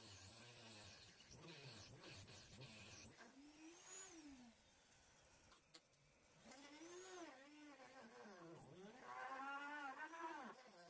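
Corded electric drill run in several short bursts while drilling into the wooden stern of a model ship hull, its motor whine rising and then falling in pitch with each squeeze of the trigger, loudest near the end.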